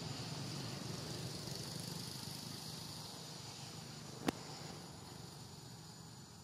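Steady outdoor background with a high hiss and a low rumble that slowly fades, broken by one sharp click about four seconds in.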